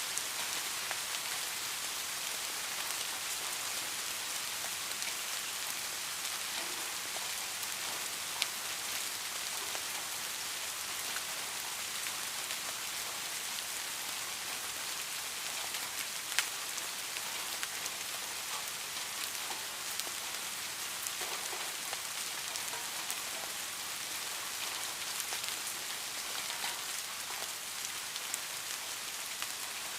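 Steady rain falling, an even hiss with scattered sharper drop ticks, a couple of them standing out at about 8 and 16 seconds in.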